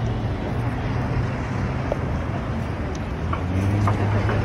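Busy street traffic: steady engine and tyre noise from passing cars, with a large vehicle's low engine hum, here a double-decker tour bus close by, growing louder near the end.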